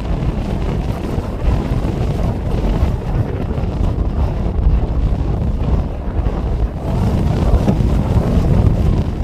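Strong wind buffeting the microphone: a steady low rumble that grows a little louder near the end.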